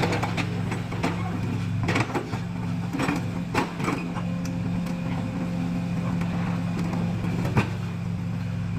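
Excavator's diesel engine running steadily, with several sharp clanks and knocks scattered through it.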